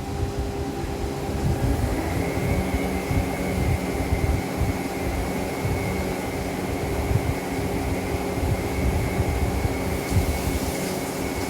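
A machine running steadily: a low rumble with several humming tones, and a thin high whine joining about two seconds in.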